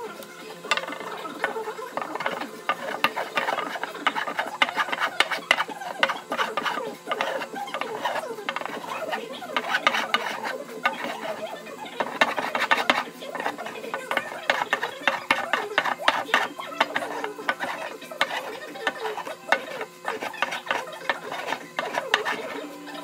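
A small hand router plane cutting a shallow recess in hardwood: a rapid, irregular run of short scraping strokes as its blade lifts curled shavings.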